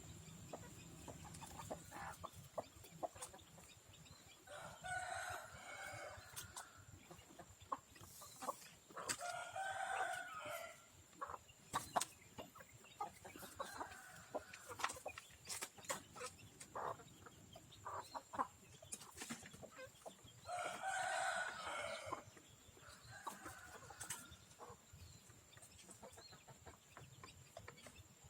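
Roosters crowing three times, each crow lasting about two seconds, among hens clucking and many short sharp ticks.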